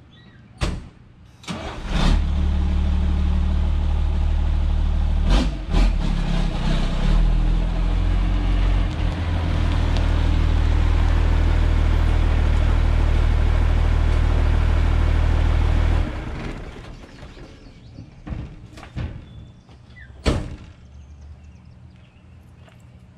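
1988 Ford F700 dump truck's engine running steadily as the truck pulls up, then shut off abruptly about 16 seconds in. A few sharp knocks come before it starts and after it stops.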